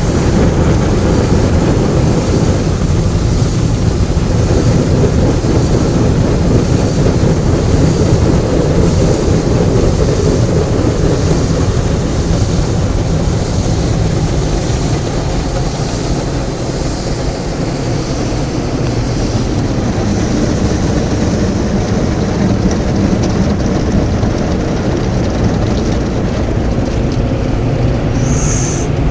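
Automatic car wash machine running: a loud, steady rush of machine noise, with a short high hiss near the end.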